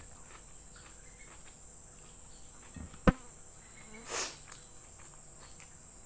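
A person chewing fried chicken liver with the mouth closed, faint and soft, over a steady high hiss. A sharp knock comes about three seconds in, and a short rushing breath-like noise just after four seconds.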